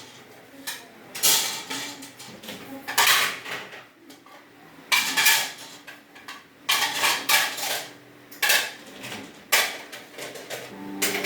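Dishes and metal ware clattering and clinking: a string of irregular sharp knocks and rattles, each with a short ring.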